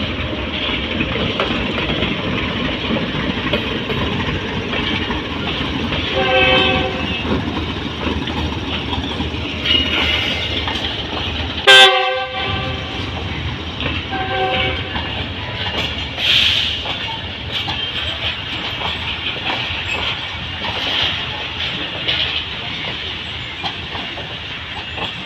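Diesel-hauled passenger train rolling past, its coaches' wheels running steadily over the track, while a train horn sounds briefly three times.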